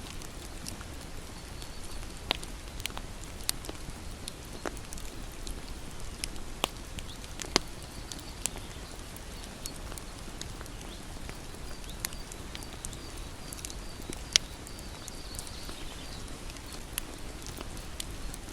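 Campfire burning, with a steady hiss and scattered sharp crackles and pops from the wood. Two pops stand out, about seven and fourteen seconds in. A faint high chirping comes and goes in the background.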